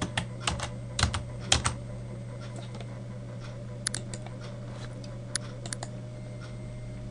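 Typing on a computer keyboard: a quick run of keystrokes over the first two seconds, then a few scattered clicks, over a steady low hum.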